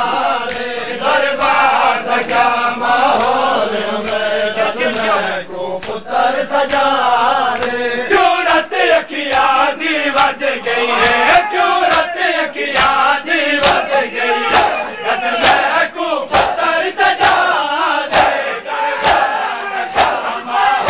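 A group of men chanting a nauha together, with rhythmic chest-beating (matam) slaps. The slaps become steady and sharp about eight seconds in, a little more than one a second.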